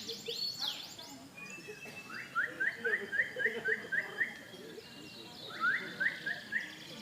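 A songbird calling: a run of about eight quick upward-sweeping notes, about four a second, then after a short pause four more near the end.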